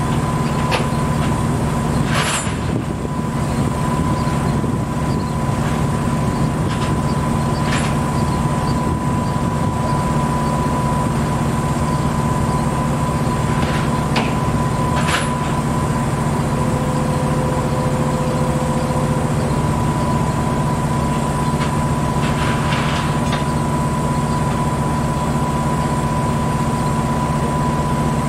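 Heavy diesel engine of a railway crane idling steadily, with two short hisses about two seconds in and again near the middle.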